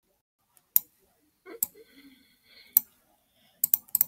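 Computer mouse button clicking: single sharp clicks spaced about a second apart, then three quick clicks near the end.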